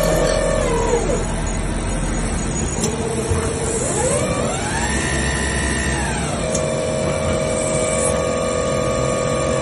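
Mazak Quick Turn Nexus 100-II CNC lathe running a cutting cycle: a motor whine falls in pitch in the first second, climbs steeply around four seconds in, drops back and holds a steady tone from about six and a half seconds on, as the spindle and drives change speed. Under it is a steady hiss of coolant spray.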